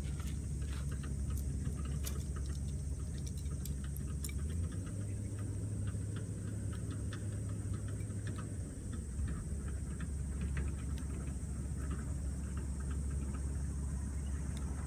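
Scattered light clicks and clinks of tent pole sections being handled and fitted together, over a steady low rumble of wind on the microphone.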